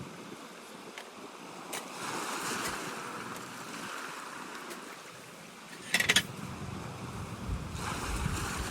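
Wind and heavy rain in a storm, rising and falling in gusts. About six seconds in comes a brief clatter of sharp clicks, and after that the wind buffets the microphone with a low rumble.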